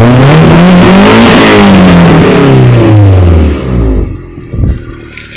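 Vehicle engine revved once through its freshly refitted full exhaust. The pitch climbs for about a second and a half, then falls away over the next two seconds, and the engine drops back to a much quieter idle about four seconds in.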